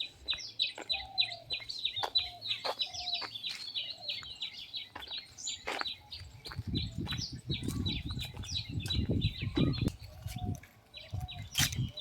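Many small birds chirping in quick, dense succession. From about halfway through, a low rumbling noise joins in under the chirps.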